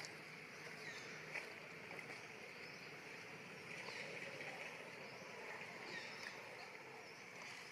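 Faint outdoor ambience: a steady drone of insects, with a few soft high chirps and one small click.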